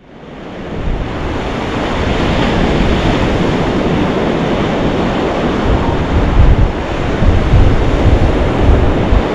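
Surf breaking on a beach with wind buffeting the microphone, fading in over the first second; the low wind rumble grows stronger in the second half.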